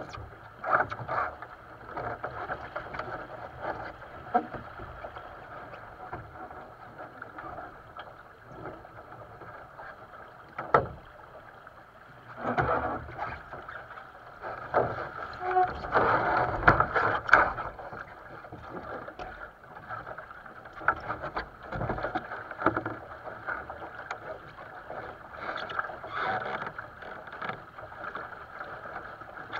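Water rushing and splashing along a sailing dinghy's hull as it sails, with frequent short slaps and knocks. One loud knock comes about eleven seconds in, and the splashing is louder for several seconds just after it.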